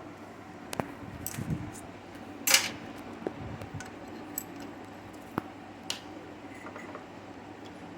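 Scattered light metallic clinks and taps, like hand tools and small engine parts being picked up and set down, the loudest about two and a half seconds in.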